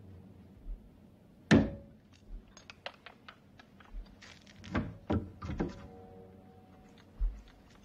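A heavy thump with a short ring about a second and a half in, then a run of small clicks and knocks and three more thumps close together near the middle, with a few dull low thuds between.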